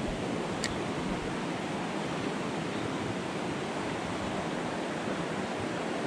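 Small mountain stream rushing steadily over rocks, running a little fast and high after rain. A faint single click about half a second in.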